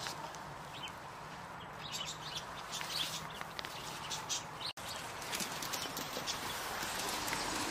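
Goats moving right at the microphone: scattered small clicks and rustling over a steady background hiss, broken by a brief gap about two-thirds through.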